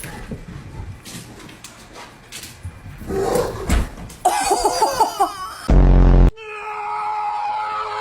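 People laughing, broken by a very loud short blast about three-quarters of the way in, followed by a steady held musical tone.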